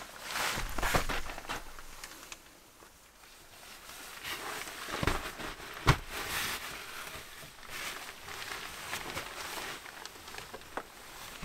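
Fabric rustling as a camouflage-pattern blanket is handled and spread out over a mat, with a few light knocks and a sharp click about six seconds in.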